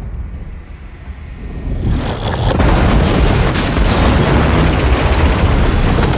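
Film sound effects of a derailed high-speed train crashing and sliding along on its side: a low rumble that builds about two seconds in to a loud, sustained crash with debris, lasting to the end.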